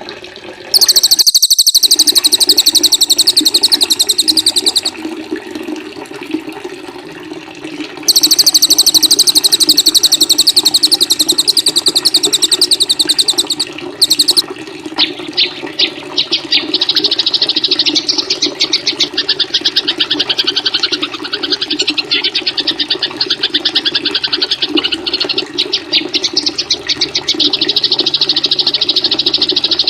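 Songbird masteran recording: very fast, high-pitched trills repeated in long runs, two runs of several seconds each, then a different rapid chattering trill from about halfway, over a steady added water sound.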